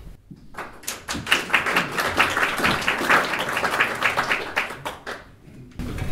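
Audience applauding: many hands clapping, starting about half a second in and dying away about a second before the end.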